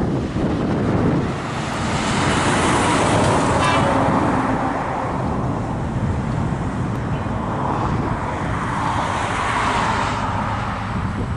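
Wind buffeting the microphone with a steady low rumble, while road traffic swells past twice, about two seconds in and again about eight seconds in.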